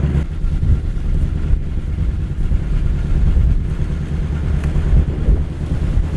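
Wind buffeting the microphone, a loud uneven low rumble with faint steady low hum beneath it.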